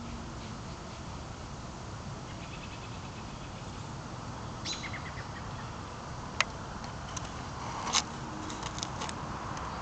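Birds chirping over a steady background hiss, with a quick run of falling chirps about halfway through. A few sharp clicks come in the second half.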